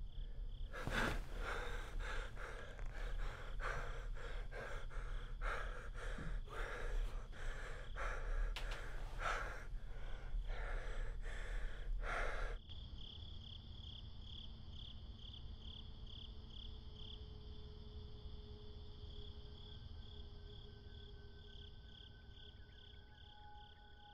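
A man breathing hard and fast, quick heavy breaths about one and a half a second, over the high pulsing chirr of insects. A little past halfway the breathing cuts off suddenly, leaving the quieter insect chirr and a few faint held tones.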